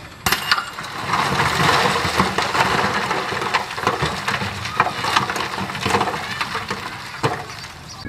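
Dirt and stones crunching and clattering as heavy earthmoving machinery works the fill. A few sharp clanks open it, then a dense run of crackling and crunching with scattered sharper knocks.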